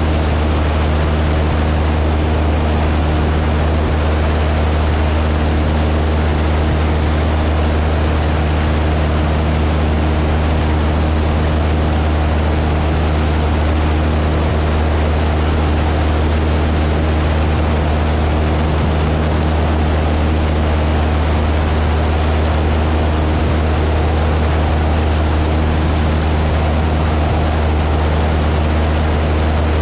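Cessna 172 single-engine piston propeller plane in flight, heard from inside the cabin: a steady engine and propeller drone with a strong low hum, unchanging throughout.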